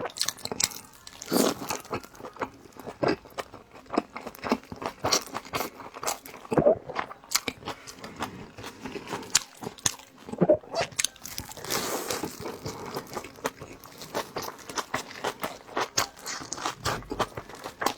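A person chewing and biting food close to the microphone: irregular wet clicks and crunchy mouth sounds that keep going throughout.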